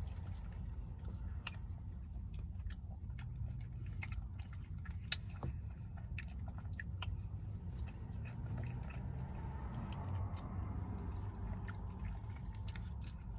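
Close-miked eating of Ben & Jerry's ice cream: wet mouth sounds and chewing with scattered small clicks, and one sharper click about five seconds in.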